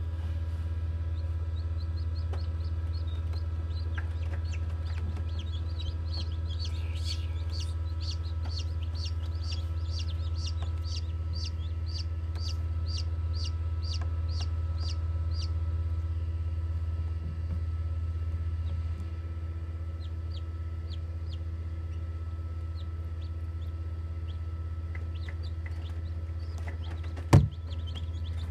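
Newly hatched chicks peeping in an incubator: a fast run of short, high peeps, about two or three a second, thinning out after the middle, over a steady low hum. A single sharp knock just before the end.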